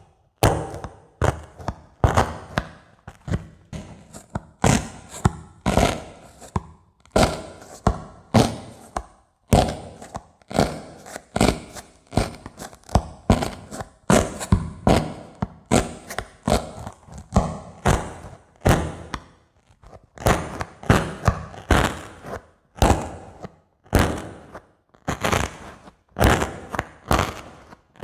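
Dry sponge handled close to the microphone: a steady run of short, scratchy strokes, about two a second, some with a dull thump.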